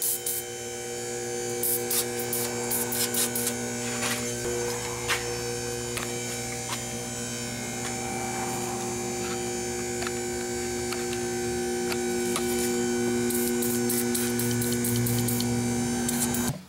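Steady electrical mains hum with a low buzz. It is broken by two runs of short, sharp hissing spurts from an aerosol can of penetrating oil being sprayed onto rusty exhaust bolts, a few seconds in and again near the end.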